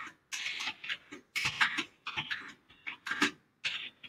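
Computer keyboard typing in short runs of keystrokes, five or six quick clusters with brief silent gaps between them.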